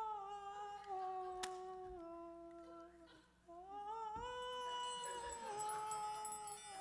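Wordless humming of a slow tune in long held notes. The pitch steps down about two seconds in, breaks off briefly, then slides up into a higher held note.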